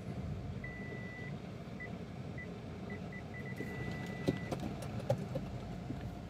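Car parking-sensor warning beeping inside a Suzuki Ciaz: a steady tone, then short beeps that come quicker and quicker until they merge into one continuous tone, the sign of an obstacle getting very close while manoeuvring. A few clicks sound as it stops, over the steady low hum of the car.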